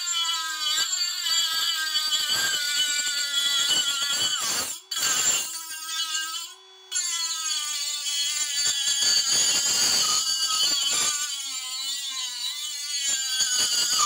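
Parkside PMBSA 20-Li A1 cordless multi-grinder cutting a metal profile with a small cut-off disc: a high motor whine over grinding hiss, dipping briefly twice. Near the end it cuts out suddenly, as this tool keeps switching itself off every so often for no clear reason, a fault.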